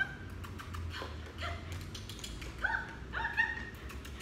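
Shiba Inu giving a run of short, high-pitched whining yelps, each sweeping up in pitch, with a longer held whine about three seconds in.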